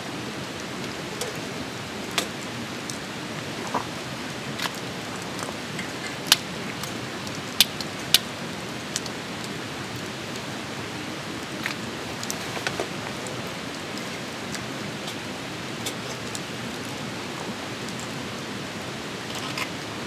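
Campfire with charcoal burning, crackling: a steady hiss with sharp, irregular pops every second or so.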